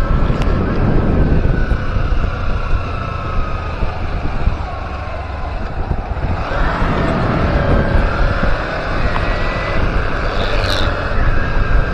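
Kawasaki Z250 motorcycle engine running on the road under heavy wind rumble on the microphone; the engine note falls, sags in loudness midway, then climbs again. The bike is losing power as if about to stall, which the owner puts down to leaking valves needing a valve clearance adjustment.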